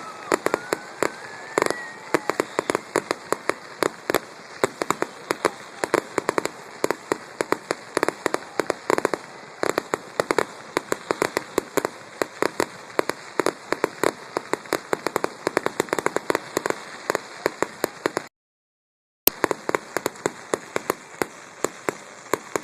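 Fireworks going off in a rapid, continuous barrage of sharp pops and crackles, several a second, with a rising whistle in the first two seconds. The sound cuts out completely for about a second near the end, then the popping carries on.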